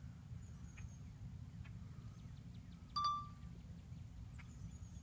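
A single sharp metallic clink with a brief ringing tone about three seconds in, over a steady low rumble.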